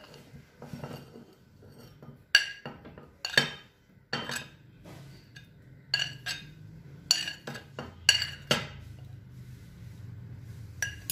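Steel spoon clinking and scraping against a plate and bowl as pieces of cooked sweet potato are scooped across, in irregular sharp clinks that ring briefly.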